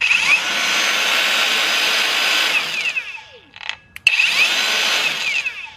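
Abeden 18V brushless cordless angle grinder with no wheel fitted, spinning up to full speed, running for about three seconds and winding down with a falling whine. After a short blip it is switched on again about four seconds in and winds down again near the end.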